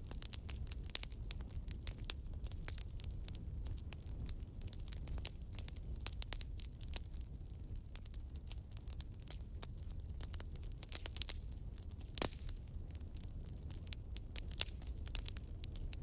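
Wood fire crackling in a fireplace: burning logs giving off a dense, irregular run of small pops and snaps over a low steady background, with one louder pop about three quarters of the way through.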